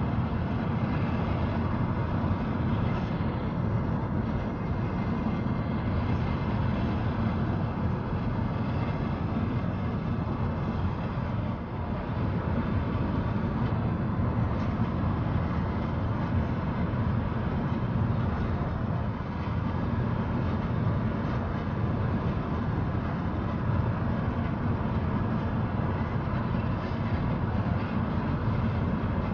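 Steady road and wind noise inside a moving car, mostly a low rumble.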